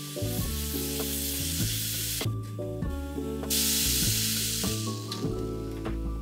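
Sugar-and-cocoa chocolate syrup sizzling as it cooks in a saucepan. The sizzle drops out for about a second midway. Background music plays throughout.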